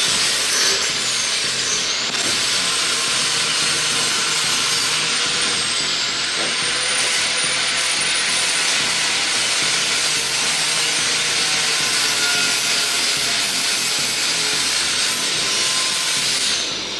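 Angle grinder running continuously against a steel tube frame, a steady grinding hiss with a high motor whine that sags a few times as the disc bites under load.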